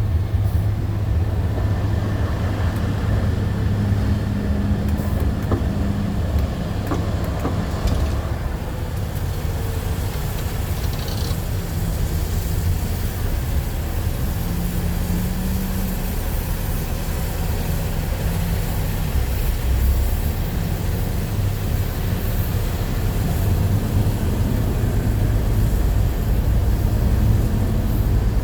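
Dump truck's diesel engine running steadily, a continuous low drone.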